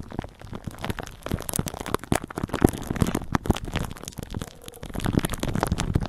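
Hungry stomach gurgling and rumbling, picked up close to the belly: a dense, irregular run of wet pops and crackles.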